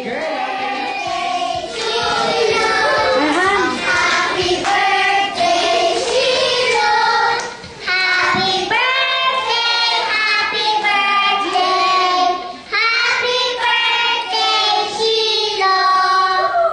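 A group of children's voices singing a birthday song together, with short breaks between lines about halfway through and again near three quarters of the way.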